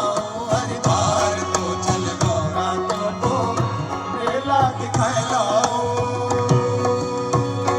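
Live Indian folk music: tabla strokes keep a steady rhythm under a wavering, ornamented melody over a sustained drone.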